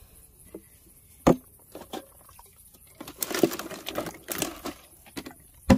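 Aluminium drink cans and plastic water bottles knocking and clattering against each other in a plastic cooler as a hand rummages among them. There are two sharp knocks, one about a second in and one at the very end, and a busier spell of clattering and rustling a little past halfway.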